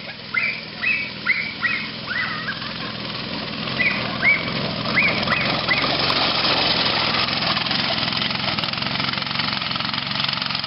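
Small engine of a backyard go-kart buggy running, growing louder from about four seconds in as it drives close past and fading just after. Over the first half, domestic fowl squawk in a run of short, repeated notes.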